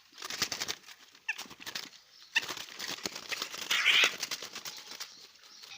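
A black-naped oriole being taken in hand: quick fluttering and rustling, with a few short squeaks and a brief harsher burst about four seconds in.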